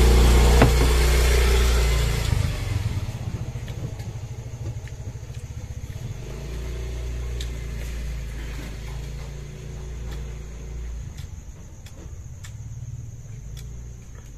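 Small motorcycle engine running close by, loudest for the first couple of seconds, then fading as the bike moves off, leaving a quieter low drone.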